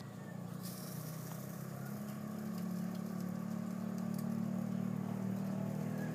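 Steady low motor hum from the automatic lechon roaster's motorized spit turning the whole pig, growing slightly louder, with a few faint crackles.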